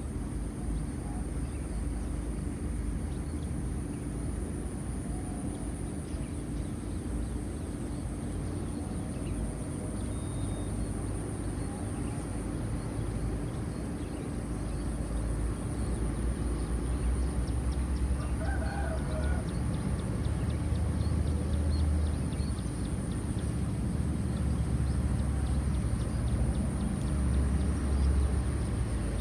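A rooster crowing once, about two-thirds of the way through, over a steady high insect drone and a low rumble that grows stronger in the second half.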